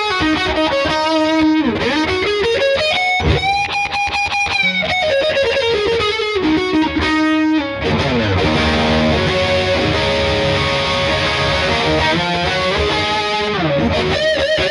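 Schecter Hellraiser Extreme C-1 electric guitar with active EMG pickups, played through a distorted tone. It plays a lead solo of held notes and fast runs, with wide bends near the end.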